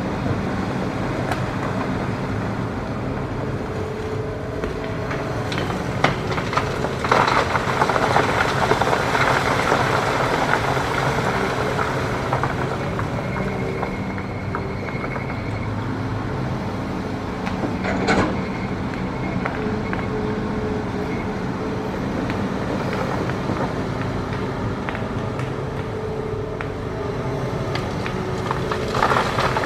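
Hitachi ZX210 hydraulic excavator's diesel engine running steadily as the bucket digs into hard rock. Stone scrapes and grinds for several seconds about a quarter of the way in and again near the end, with a sharp knock of rock about six seconds in and another just past the middle.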